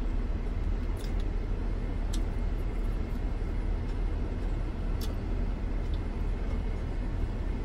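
Steady low rumble inside a minivan's cabin from the van idling, with a few faint clicks scattered through it.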